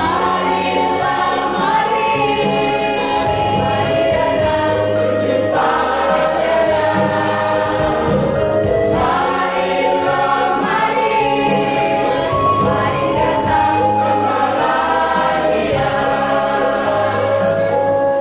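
Church choir singing a hymn in several voice parts, with a steady instrumental accompaniment beneath.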